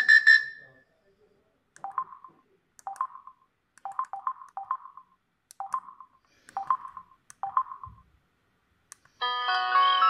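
LG KS360 mobile phone's key tones: short two-note beeps, one for each press, as the menus are stepped through. A pulsing ringtone preview cuts off just after the start, and near the end another ringtone preview begins, a layered tune with a warbling high note.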